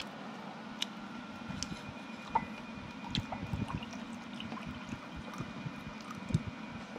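Iced tea poured from a plastic bottle into a glass mug, with scattered small splashes and plops of liquid.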